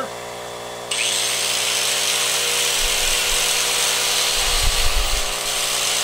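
Electric angle grinder switched on about a second in and running freely at full speed: a steady, loud whine and hiss. There are a few low thumps near the middle, over the steady hum of other running machines.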